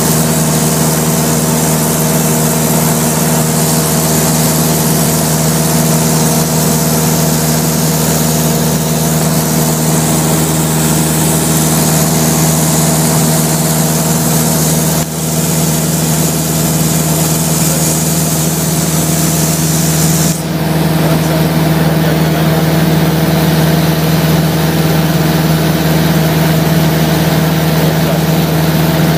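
Piston engine and propeller of a high-wing light aircraft running steadily in cruise, heard from inside the cabin, with a hiss of rushing air over it. The sound dips briefly about halfway through and again about two-thirds through, after which the hiss is a little duller.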